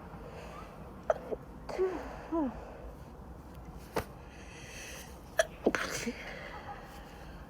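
A woman's sneezing fit: catching, falling-pitched gasps of a build-up, then a drawn-in breath and sharp sneezes about five and a half seconds in.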